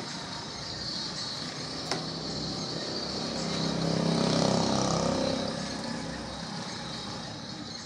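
A motor vehicle's engine hum that swells to its loudest about four to five seconds in and then fades, as of a vehicle passing. A steady high hiss runs underneath, with a single short click near two seconds in.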